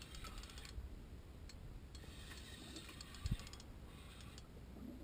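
Fishing reel ticking faintly in quick runs of clicks while a fish is played on a bent light rod, with one soft low thump a little past three seconds in.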